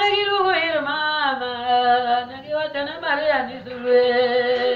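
A single voice singing a slow hymn or prayer chant in long held notes that glide down and back up.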